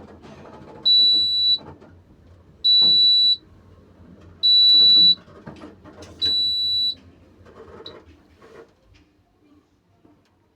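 Elevator's electronic buzzer sounding four long, high, steady beeps, about two seconds apart, then falling silent.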